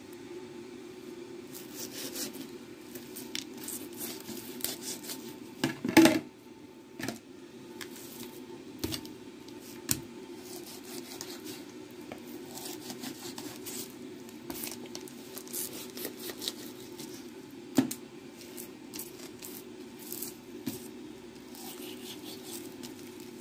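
Long kitchen knife cutting up a whole raw chicken on a wooden cutting board: skin and joints tearing and snapping in short scattered clicks, with the blade knocking the board now and then, loudest about six seconds in and again near eighteen seconds. A steady low hum runs underneath.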